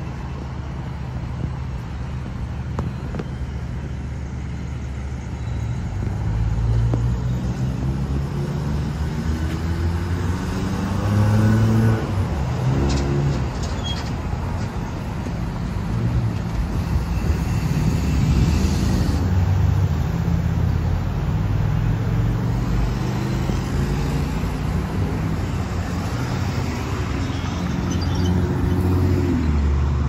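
Road traffic passing, with vehicle engines rising in pitch as they accelerate, once about a third of the way in and again near the end.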